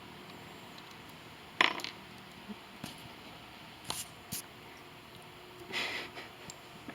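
A few sharp metallic clinks and taps of tools and small steel parts being handled. The loudest comes about a second and a half in, with lighter ones after it.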